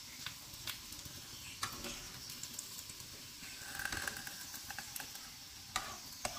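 Faint hiss of shami kababs frying in oil, with a few sharp clicks of a metal slotted spatula against the pan and plate as the golden kababs are lifted out. Two of the clicks come close together near the end.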